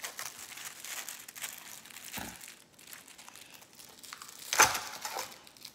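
Clear plastic food pouch crinkling and crackling as it is handled and shaken out over a plate. There is a soft knock about two seconds in and a louder thump a little before the end.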